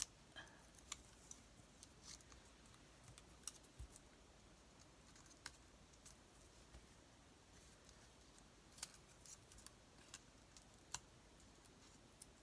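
Faint, irregular snips of small scissors cutting paper, fussy-cutting around an image.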